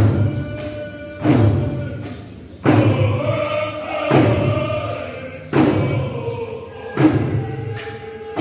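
A drum struck in a slow, steady beat, about one stroke every second and a half, with a group of singers chanting a ceremonial song over it.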